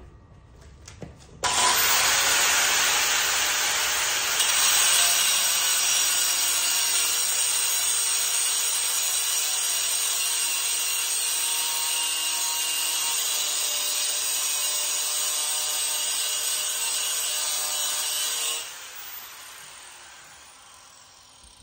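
Handheld angle grinder switched on about a second and a half in, its motor whining up to speed, then grinding metal frame tubing with a steady harsh noise. Switched off near the end, the disc spins down with a falling whine.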